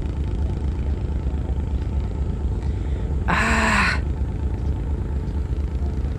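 Steady low rumble of an Amel Super Maramu sailboat's inboard diesel engine, motoring through calm water. About halfway through, a person lets out a short, loud 'ah'.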